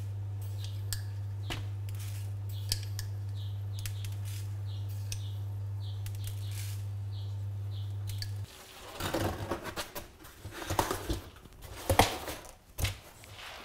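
A metal spoon scraping and clinking in a glass jar as brown sugar is spooned into a cardboard pizza box: faint small clicks over a steady low hum that stops suddenly about eight seconds in. Then the cardboard box is handled and its lid folded shut, with louder rustling and a few knocks.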